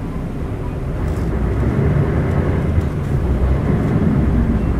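Isuzu LV bus's 8PE1-N diesel engine running under way, heard from inside the cabin, growing louder over the first two seconds and then holding steady.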